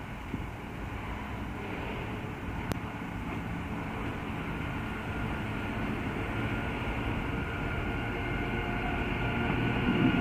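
BB 27000-series electric locomotive hauling a container freight train, approaching and growing steadily louder with a low rumble of wheels on the track. A steady high tone comes in about four seconds in.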